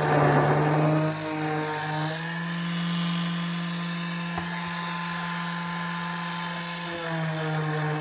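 Bosch electric detail sander running and sanding a plywood piece: a steady motor hum with a rasping sanding hiss, loudest in the first second. The motor's pitch rises a little about two seconds in and drops back about seven seconds in.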